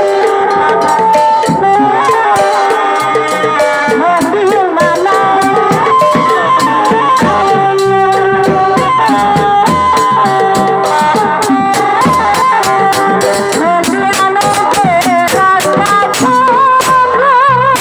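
Folk-style music: a sustained, wavering melody with vibrato over busy, rattling percussion.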